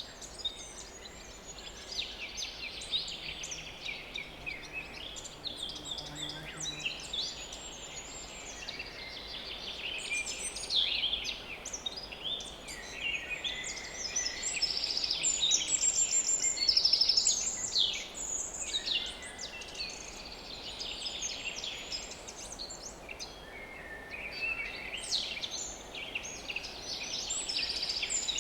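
Chorus of small woodland songbirds, several singing and calling at once in overlapping high twittering phrases, busiest and loudest around the middle. A fly buzzes faintly close to the microphone for a few seconds.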